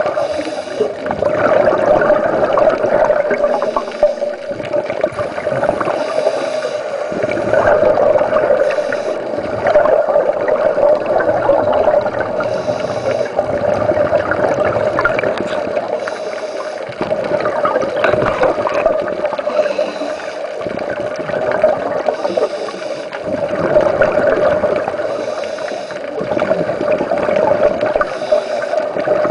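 Underwater recording of scuba divers breathing through their regulators: exhaled bubbles gurgle in swells every few seconds, over a steady droning tone.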